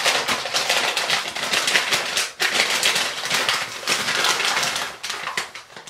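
Brown kraft paper bag crinkling and rustling as it is opened and its contents handled: a dense, continuous run of quick papery crackles.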